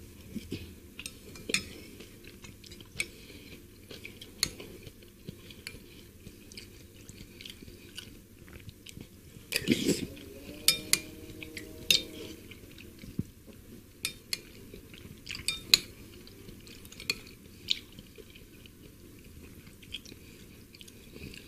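Close-up eating sounds of seblak soup: a metal spoon clicking against a ceramic bowl at scattered moments, with sipping of the hot broth and soft chewing. A louder stretch of mouth sounds comes about ten seconds in.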